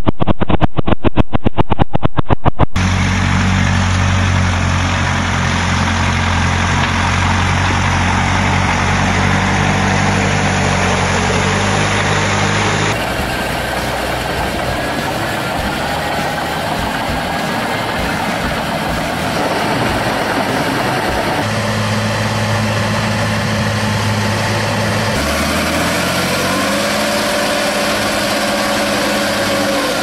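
Old farm tractor engines running in a series of cut-together clips. First comes a small half-track tractor with a loud, fast, regular pulsing, then steady engine drones from a tracked tractor pulling a plough. Near the end a SAME four-wheel-drive tractor's engine works in mud, its pitch rising.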